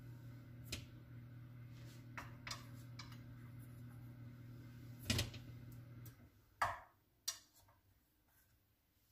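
A metal utensil clicking and scraping against a metal muffin tin as baked cupcakes are prised out, with a few light clicks and two louder knocks, about five and six and a half seconds in. Under it a steady low hum runs and cuts off about six seconds in.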